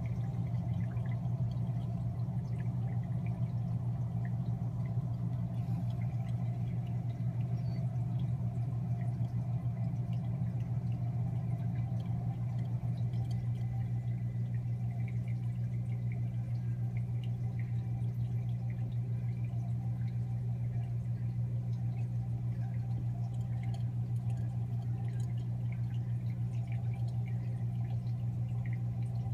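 Aquarium pump or filter humming steadily, with water trickling and light dripping over it.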